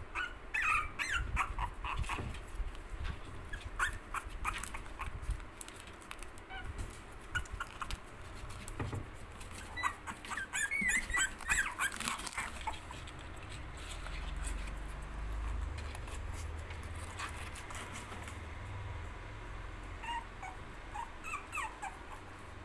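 Puppies whimpering and yipping in short, high squeaks as they play, in flurries about a second in, around the middle and near the end, with scattered clicks in between.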